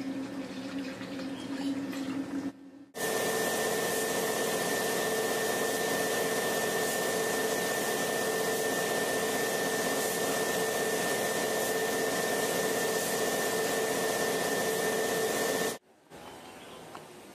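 Paint spray gun spraying: a steady hiss of compressed air with a thin whine. It starts suddenly about three seconds in and cuts off shortly before the end.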